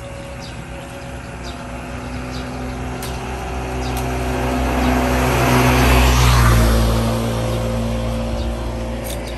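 A motor vehicle passing by: its noise builds to a peak about six seconds in and then fades away.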